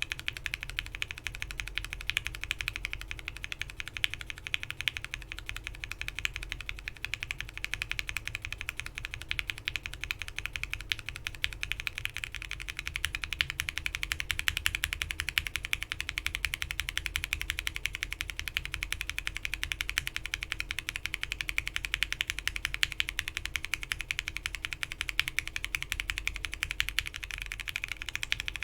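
Fast, continuous typing on a mechanical keyboard with linear frankenswitches: Gateron Milky Yellow switches under Alpaca top housings, then, about thirteen seconds in, under NK Cream top housings. The switches sit on an FR4 plate in a foamed Bakeneko60 case with PBT keycaps, giving a dense run of clacks that gets a little louder after the top-housing swap.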